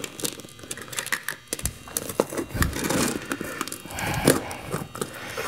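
Asphalt shingle being cut with a utility knife and the cut piece bent and torn away: irregular scraping and crackling with small clicks.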